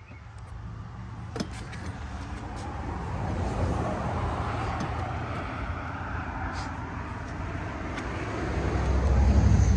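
Road traffic: vehicle engine and tyre noise swelling and easing, with a low rumble growing louder near the end.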